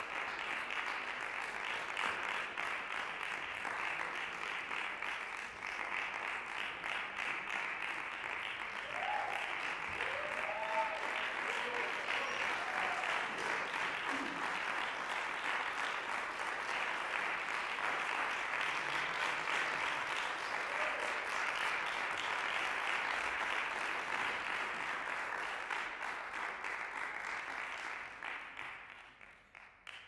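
Audience applauding steadily, dying away over the last two seconds.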